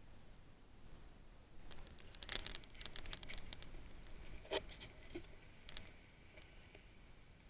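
Faint crackles and taps of water and handling on an SJ1000 action camera's waterproof case as it comes up out of a rock pool: a quick cluster of crackles about two seconds in, then two single taps.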